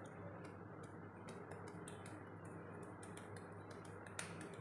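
Faint, irregular soft clicks, several a second, from fingertips massaging wet skin on the face and neck, over a steady low hum.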